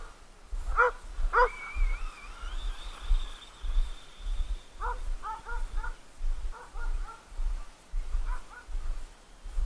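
Dogs barking and yipping as they chase a radio-controlled car: two barks about a second in, then runs of short, quick yips in the second half. A thin whine rises and then holds steady between them.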